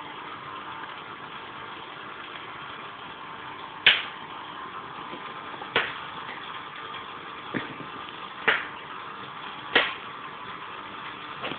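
Six sharp knocks and thumps, irregularly one to two seconds apart, over a steady hiss: a Bengal cat pouncing and thrashing on a laminate floor while playing with a string toy.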